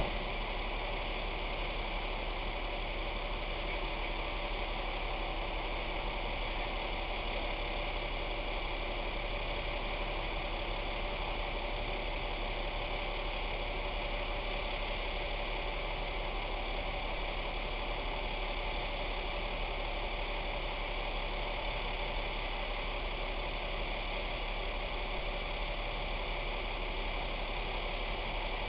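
Parked public works utility truck's engine idling steadily, a constant even drone with hiss and no change in speed.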